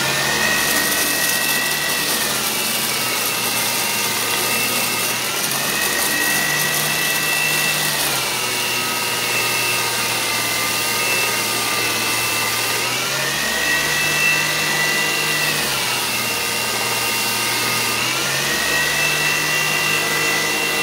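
Servo-motor-driven 2x42 belt grinder running with a 150-grit belt while a faceplate is sanded flat against it. The motor whine and hiss are steady and loud, the whine stepping down and back up in pitch several times.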